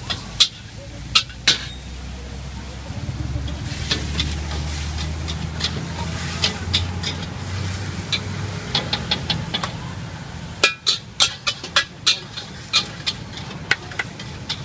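A metal spatula striking and scraping a steel wok while stir-frying noodles, giving a quick series of sharp clanks. The clanks are thickest near the start and again in the second half, with a low rumble rising underneath in the middle.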